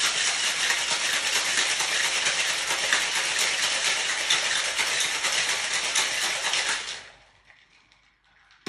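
Ice cubes rattling hard inside a cocktail shaker during a vigorous shake. The rattle runs for about seven seconds and then stops.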